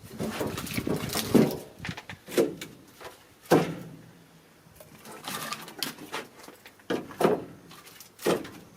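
Irregular hollow wooden knocks and clunks, about a dozen, each ringing briefly: pieces of firewood knocking together as they are handled and stacked.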